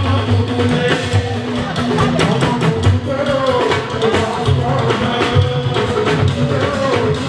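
Fuji music played live: a lead singer over drums and percussion with a steady bass line.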